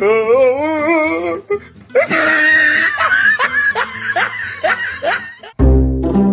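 A pug howling with a wavering pitch, then a run of louder, choppier high cries.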